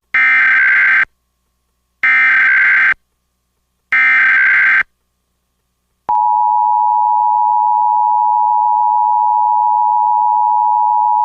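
Emergency Alert System SAME header for a Severe Thunderstorm Warning: three identical buzzy digital data bursts about a second long each, a second of silence, then the EAS attention signal starting about six seconds in, a loud steady tone near 1 kHz.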